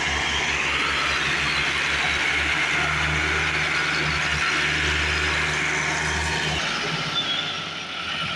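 Diesel tractor engines working hard under heavy load: a Massey Ferguson 385 towing a Fiat 480 tractor and its loaded sugarcane trolley, which is barely moving. The deep, pulsing engine note drops away sharply about six and a half seconds in.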